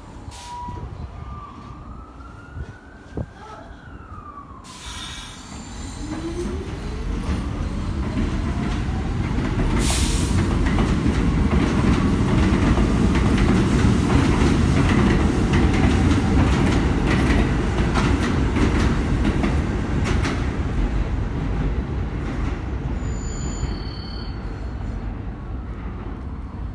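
New York City subway train picking up speed: the motor whine climbs steadily in pitch while wheels rumble and rattle on the rails, growing loud through the middle and easing off near the end.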